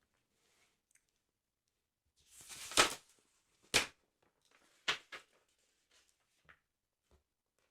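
Close-miked handling of a football sticker album's paper: a rustling swell that ends in a loud crisp crack about three seconds in, then another sharp crack, two quick snaps and a few faint ticks.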